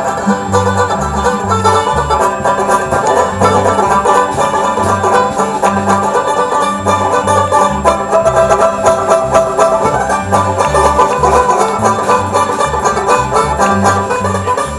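Old-time string band playing an instrumental break: banjo with fiddles, mandolins and guitars over a bass line pulsing about twice a second.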